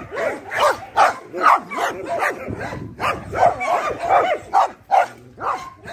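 Dogs barking in quick succession, about two barks a second, with wavering whines between the barks.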